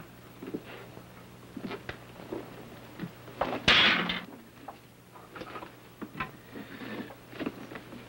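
Scattered footsteps and small knocks of someone walking into a room, with one louder scrape about three and a half seconds in. A steady low hum of an old film soundtrack runs underneath.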